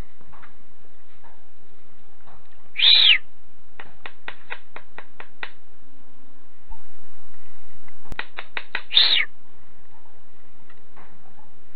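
A bird calling twice, each time one short arched note paired with a quick run of sharp clicking chips, about six a second.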